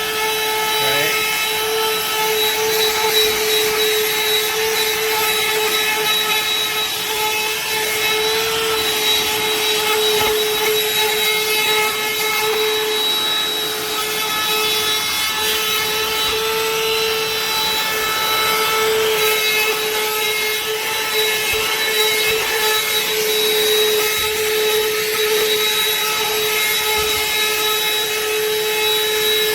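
BLACK+DECKER BDH2000L 20-volt cordless dustbuster handheld vacuum running continuously and loud while vacuuming debris: a steady motor whine over rushing air.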